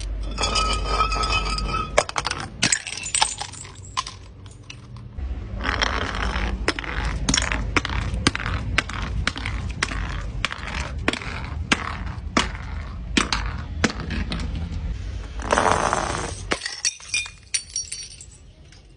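Glass bottles being crushed: a long run of sharp cracks, crunches and clinks of breaking glass over a low steady hum, in several stretches that stop and start again, with brief glassy ringing near the start.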